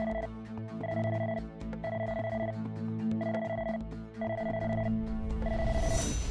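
A phone ringing out on an outgoing call: an electronic ring tone repeating about once a second, each ring a little over half a second long, over steady background music.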